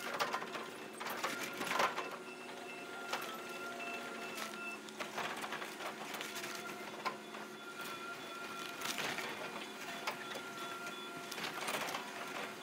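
Heavy machine working, most likely an excavator with a stump-shear attachment: a steady whine of several held tones under irregular sharp cracks and clicks.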